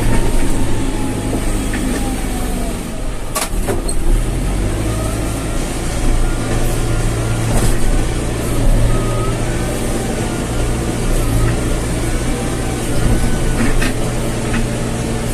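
Backhoe loader's diesel engine running steadily under work, with a thin wavering whine above it and a couple of sharp knocks, one a few seconds in and one near the end.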